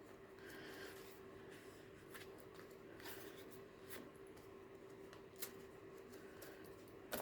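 Faint rustling and light taps of paper pages and card inserts in a handmade junk journal being handled and turned, with a sharper tick near the end, over a faint steady hum.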